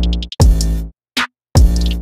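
Electronic music with a drum-machine beat: heavy bass hits broken by short silences, with quick runs of high ticks over them.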